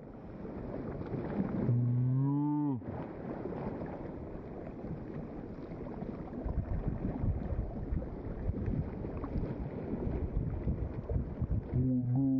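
Wind on the microphone and sea water along a rocky shore. About two seconds in comes a single long, low, steady call lasting about a second, which drops in pitch at its end.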